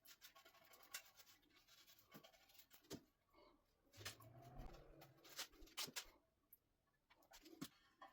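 Near silence, with faint scratching and a few small clicks and knocks scattered through.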